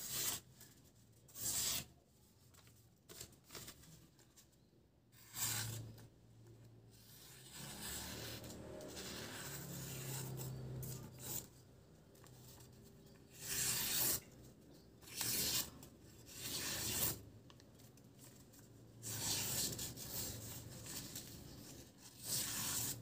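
A freshly sharpened butcher knife slicing through tissue paper in a series of short, papery cuts a second or several seconds apart. It is a sharpness test: the edge cuts the tissue cleanly.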